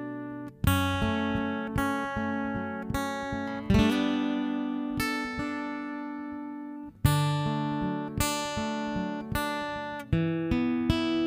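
Acoustic guitar playing strummed chords, an instrumental intro with no vocals yet. Each chord change comes with a strong strum, about every three seconds, and lighter strums ring out in between.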